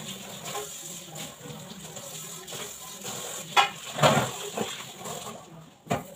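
Tap water running into a kitchen sink while things are washed by hand, with a few sharp clanks of utensils; the running water stops about five seconds in.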